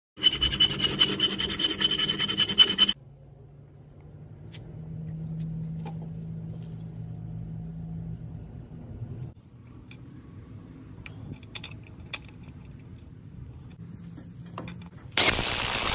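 Hacksaw cutting into a steel bolt held in a bench vise, slotting its threads: about three seconds of fast, rasping metal-on-metal strokes with a ringing edge. Quiet shop noise with light clicks follows. Near the end comes a loud burst lasting about a second.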